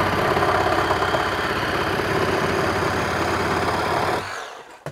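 Kobalt brushless one-handed cordless reciprocating saw running at full speed, its blade sawing through a two-by-four. The saw cuts off a little over four seconds in as the cut finishes, and the motor winds down.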